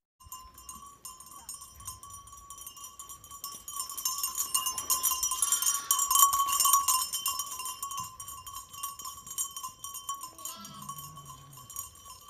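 Livestock bells jingling and clanking without a break, loudest around the middle, with a short call that falls in pitch near the end.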